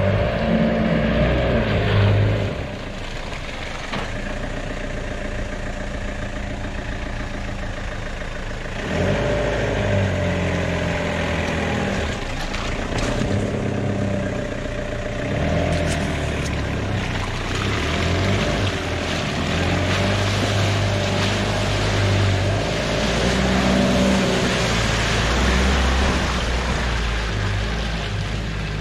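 A 4WD ute's engine revving up and easing off in turn as it crawls through deep mud ruts, with the rush of tyres working in the mud.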